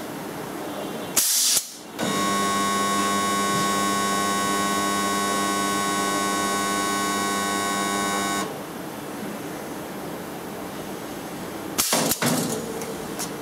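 Manek MRBW-40P pneumatic rod butt welder in a weld cycle: a short burst of air hiss from the pneumatic clamps about a second in, then the welding transformer hums steadily for about six seconds while current heats the rod joint to a glow, and cuts off suddenly. Near the end comes a second short burst of air hiss.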